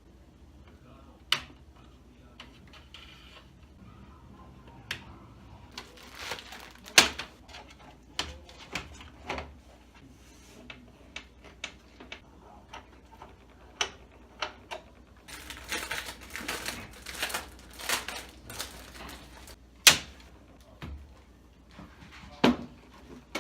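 Irregular clicks and knocks of hard objects being handled, with a sharp knock about seven seconds in and again near twenty seconds, and a run of rapid clicking and rustling in between.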